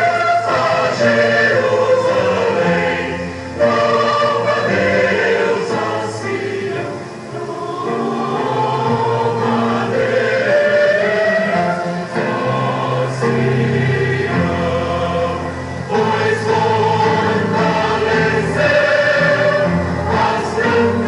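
Church choir of mixed voices singing a hymn in Portuguese.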